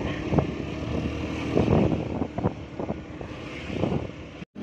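Motorcycle engine running steadily on the move, with wind noise on the microphone. The sound drops out for a moment near the end.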